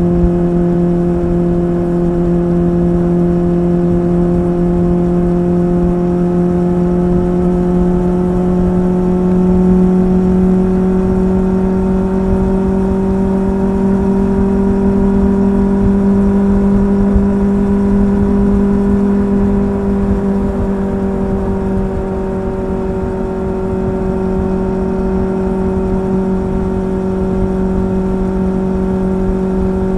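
Honda CB400 Super Four's inline-four engine and exhaust running steadily under way at cruising speed. The note rises a little about a third of the way in and eases back down about two-thirds of the way through.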